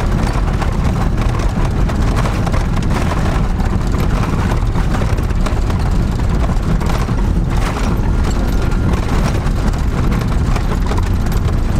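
Camper van driving over a rough, rocky dirt track, heard from inside the cabin: a steady engine and tyre rumble with many small knocks and rattles from the bumps.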